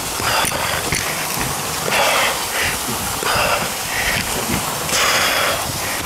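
A person breathing hard close to the microphone, about one rasping breath a second, over a steady rush of water.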